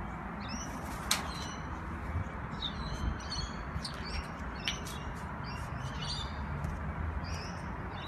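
A bird chirping in many short high calls, with a couple of sharp clicks, over a steady low background hum.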